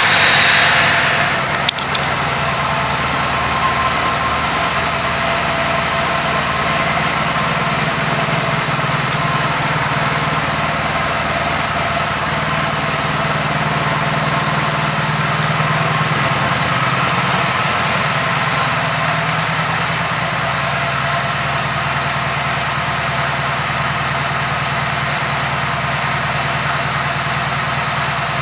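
2003 Honda Magna's 750 cc V4 engine easing down over the first couple of seconds into a steady idle.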